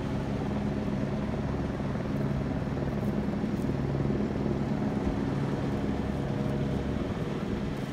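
Steady engine drone at a constant low pitch throughout, with a low rumble beneath it.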